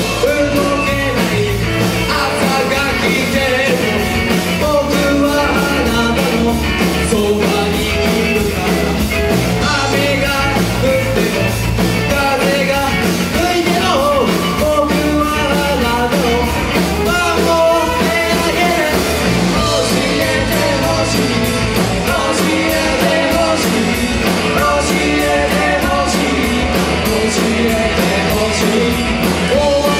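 Punk-rock band playing live: a vocalist sings over electric guitar, bass and drums.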